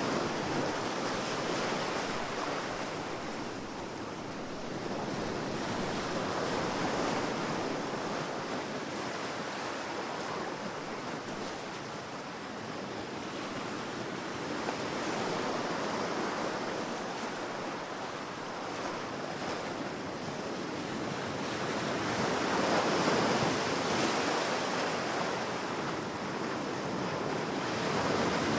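Ocean waves breaking and washing on a beach, a steady surf that swells and eases every several seconds.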